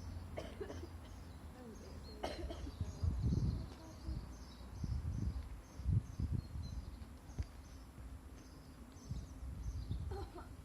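A girl coughing a few times, the loudest coughs about two seconds in and again near six seconds. Under them runs a steady series of short high chirps, a couple a second, from insects or birds.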